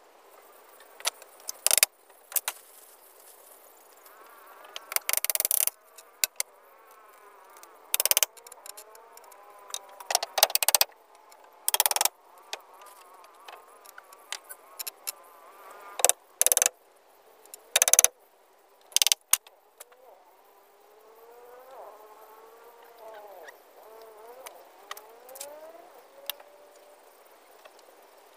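Irregular sharp knocks and clatters, about fifteen spread unevenly, some brief and some lasting up to half a second. Between them come faint rising and falling pitched calls.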